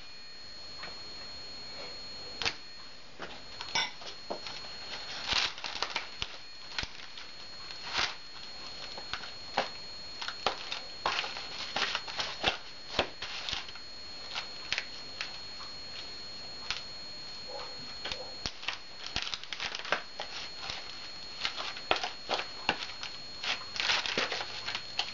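Hands tossing raw chicken wings in dry rub inside a disposable aluminium foil pan: irregular crinkles and taps of the thin foil and soft slaps of the meat, coming in quick clusters.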